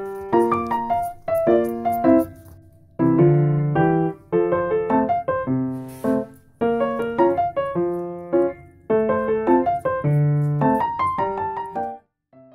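Piano music playing a melody over chords, stopping just before the end.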